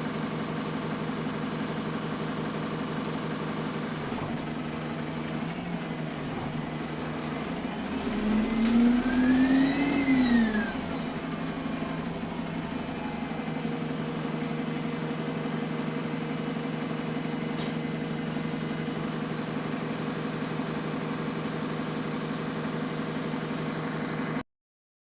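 Bus engine and drivetrain of an early Alexander Dennis Enviro400 MMC double-decker running steadily, heard from on board. Around eight seconds in, a whine rises in pitch and then falls away over about two seconds as the bus pulls away and eases off. The sound cuts out briefly near the end.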